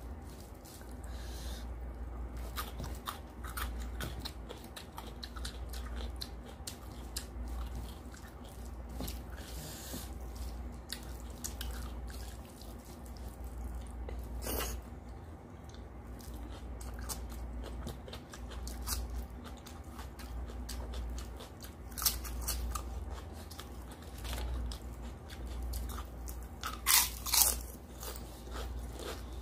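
Close-up eating sounds: chewing mouthfuls of mutton curry and rice, with fingers mixing rice and curry on a brass plate. A few louder sharp crunches or clicks stand out about halfway through and near the end.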